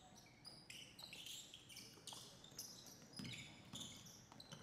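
Faint basketball game sounds: sneakers squeaking again and again on a hardwood court, with a basketball bouncing.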